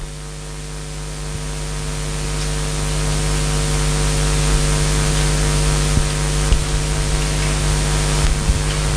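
Steady electrical hum and hiss from the microphone and sound system during a pause in speech. The hiss grows gradually louder over the first few seconds, and a few faint clicks come in the second half.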